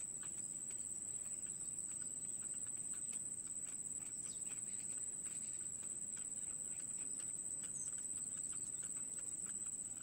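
Downy bittern chicks in a reed nest giving rapid, irregular short ticking calls while begging for food, over a steady high-pitched whine and a low background hiss.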